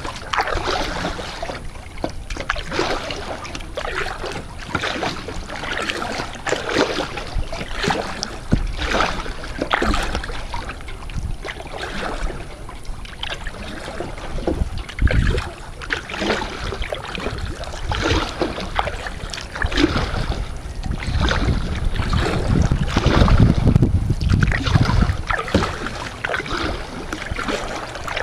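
Kayak paddle strokes dipping and splashing in calm water, one after another, with wind rumbling on the microphone at times.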